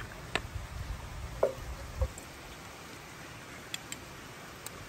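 Serving utensils knocking and clinking against a metal cooking pot and a stainless steel bowl as stew is ladled out: four sharp knocks with soft thuds in the first two seconds, then a few faint ticks near the end.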